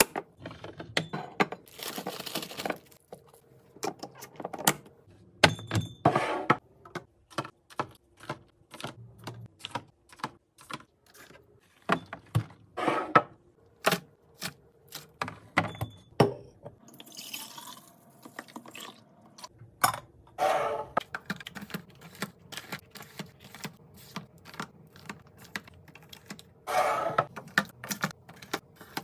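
Items being restocked into a fridge: many quick clicks, taps and knocks of plastic containers and bottles being set down and arranged, with a few short rustling or pouring spells in between.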